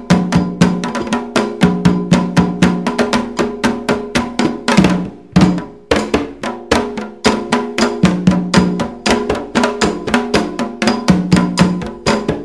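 Candomblé percussion playing a fast, even rhythm of about six strokes a second: hand drums with a struck metal bell, under steady pitched tones. The rhythm breaks off briefly about five seconds in and then resumes.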